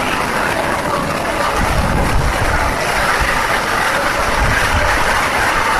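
Heavy rain falling in a steady, loud hiss, with runoff streaming down off a steel bridge deck. A low, uneven rumble joins in about a second and a half in.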